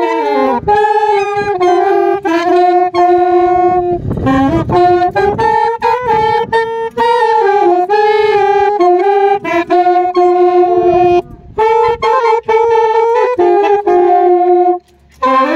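A small wind ensemble of saxophones and a clarinet plays a melody in harmony. The notes are held and move stepwise, with short breaths between phrases about eleven seconds in and near the end.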